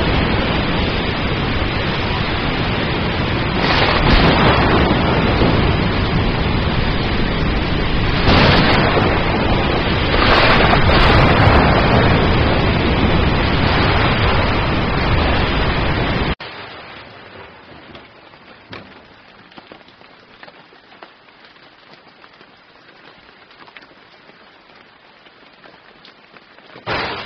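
Heavy rainstorm with loud swells of thunder about 4, 8 and 11 seconds in. It cuts off suddenly about 16 seconds in to much quieter, steady light rain with occasional drop ticks, and a brief louder rush comes just before the end.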